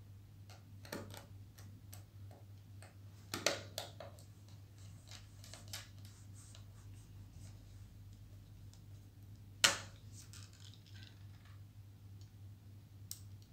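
Small precision screwdriver and metal parts of an opened 2.5-inch laptop hard drive, making faint scattered ticks and scrapes, with a sharper click about three and a half seconds in and another near ten seconds. A faint steady low hum runs underneath.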